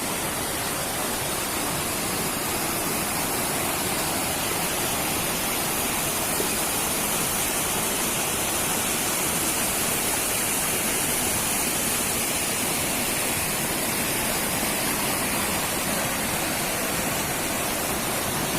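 Steady rush of water falling at the Lae Muntu waterfall, an even hiss that is strongest in the high range.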